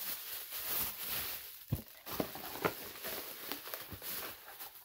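Clear plastic bag rustling and crinkling as it is handled, with several light knocks in between.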